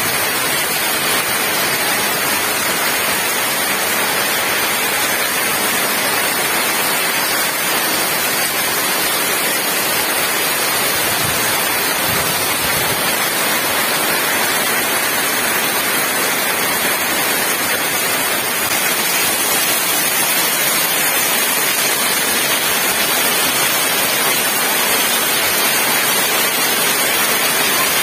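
Heavy downpour: a loud, steady hiss of rain falling on tiled roofs and a concrete yard, with water pouring off the roof's edge.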